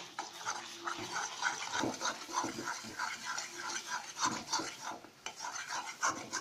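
Spatula stirring and scraping a thick sesame-and-taro-greens paste around a metal karahi, in quick repeated strokes, a few a second.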